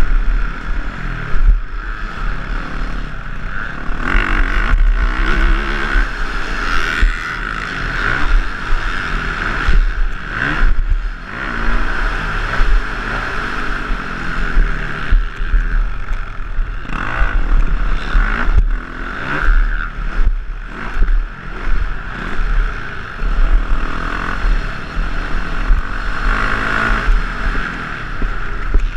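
Motocross dirt bike engine at race speed, heard from the rider's helmet camera, its pitch climbing and dropping again and again as the throttle is worked through straights and corners.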